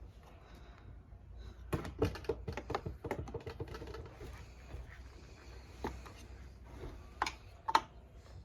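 Hand tools clicking and tapping on engine parts while a gear is worked loose from a KX85 engine case: a quick run of clicks about two seconds in, then a few single clicks near the end.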